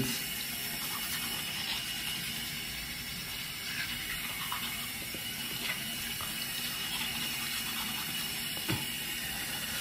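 Water running steadily from a bathroom tap into the sink, with one faint knock near the end.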